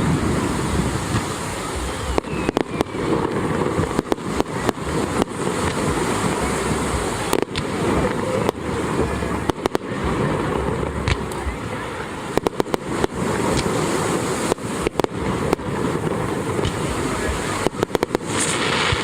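Fireworks display: a continuous rumble of bursting shells, broken by many sharp bangs and crackles that come in quick clusters every few seconds.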